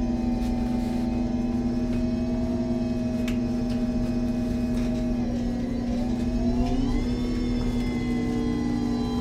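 MAN Lion's City G CNG articulated bus, heard from on board: steady running sound of the engine and Voith automatic gearbox with a whine. The whine's pitch dips about five seconds in and climbs again from about seven seconds, as the bus's speed changes.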